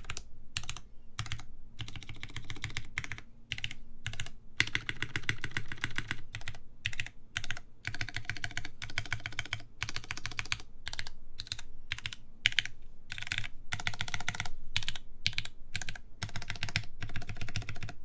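Typing on a Carolina Mech Fossil mechanical keyboard with lubed Cherry MX Black linear switches, GMK Dolch keycaps and a carbon fibre plate: runs of rapid keystrokes broken by short pauses.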